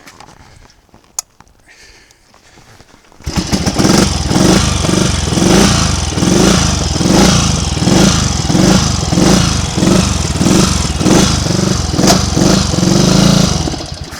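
Triumph Tiger Cub's single-cylinder four-stroke engine catching about three seconds in and running unevenly, swelling and fading about once a second, then dying suddenly near the end: stalling under load, part of the misfire trouble the rider is chasing.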